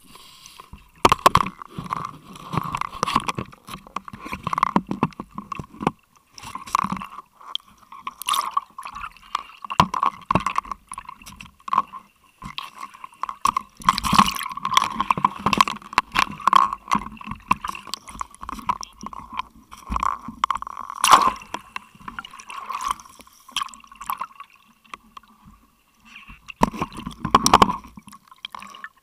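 Water gurgling and sloshing around an underwater camera just below the surface, with a steady hum underneath and uneven splashing bursts. A louder rush of bubbles and splashing comes near the end as the camera nears the surface.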